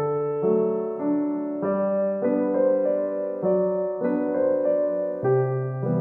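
Instrumental background music played on piano-like keys. Sustained notes and chords sit over a bass line, changing every half second to a second at an unhurried pace.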